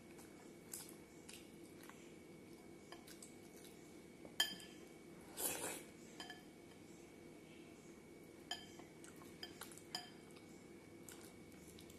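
Glass bowl clinking and briefly ringing as a hand scoops milk-soaked bread from it: a handful of light clinks, the sharpest about four seconds in. About a second after that comes a short sucking mouth sound of eating.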